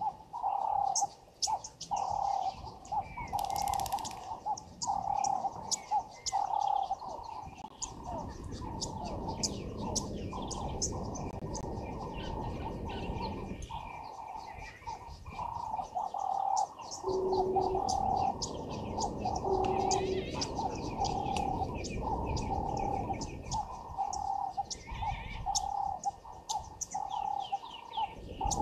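Birds calling: a low note repeats roughly once a second throughout, under many quick, high chirps and twitters.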